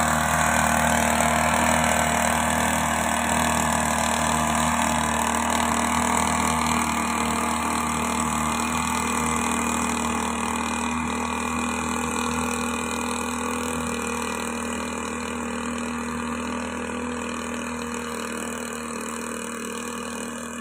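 Backpack mist blower's small two-stroke engine running steadily as it blows granular fertilizer out through its tube, slowly growing fainter as the operator walks away.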